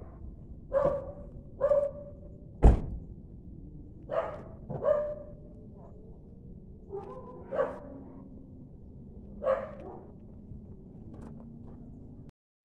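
A dog barking: about six short barks, spaced a second or two apart, with one sharp knock about three seconds in.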